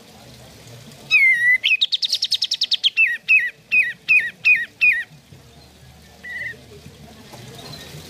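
Olive-winged bulbul (kapas tembak) singing: about a second in, a falling whistled note runs into a fast rattling trill. This is followed by six separate sharp down-slurred notes at an even pace, ending about five seconds in. A short faint note comes a little later.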